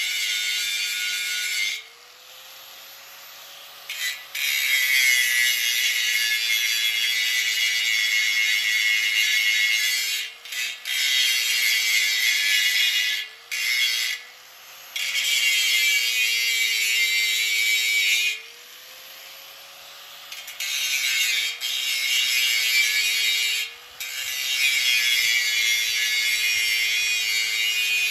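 Corded angle grinder with an abrasive disc grinding the paint off a steel tank's top: a harsh, hissing rasp over the motor's hum. The grinding breaks off five times, and each time the motor's pitch rises briefly as the disc comes off the metal and it speeds up unloaded.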